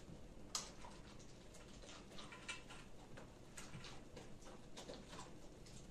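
Faint, irregular light clicks and taps from a saluki moving at its food bowl on a tiled floor, the clearest about half a second in.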